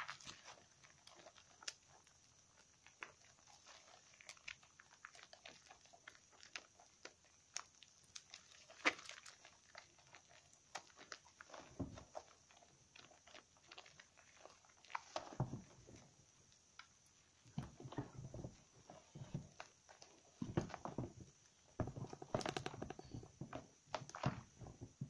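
Wet lather being squeezed and kneaded by hand around slightly soaked bar soap: squelching foam with many small crackles and clicks, the squishes coming louder and more often from about halfway.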